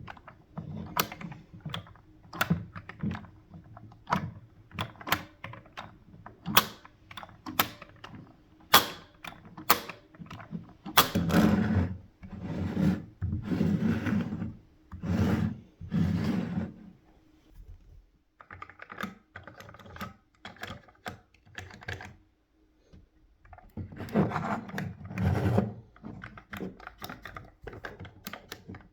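Lego plastic pieces clicking and snapping together by hand in quick, irregular clicks, then several bouts of pieces rattling and rubbing against each other.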